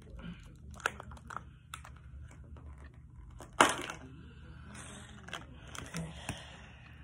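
Clear plastic candy packaging being worked open by hand: small crinkles and clicks, with one sharp plastic snap about three and a half seconds in, the loudest sound here.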